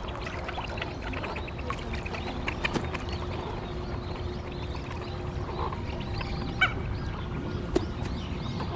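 A flock of mandarin ducks giving scattered short calls over steady outdoor background noise, with two sharp clicks in the second half.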